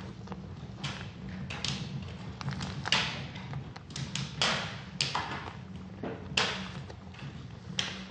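Wet squelching and irregular taps as a cut-open plastic squishy pack filled with water beads is squeezed by hand, the gel beads spilling out onto the table. A handful of louder squelches stand out among the smaller ones.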